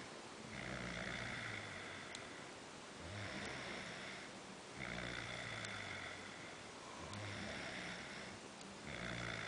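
A person snoring steadily, one long snore about every two seconds, each with a low buzz under a breathy hiss.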